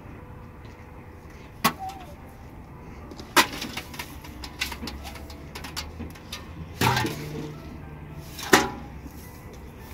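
A few sharp knocks with lighter clicks and rustles between, as containers of dry chaff are handled and tipped against a mud feeding trough. The loudest knocks come about seven and eight and a half seconds in.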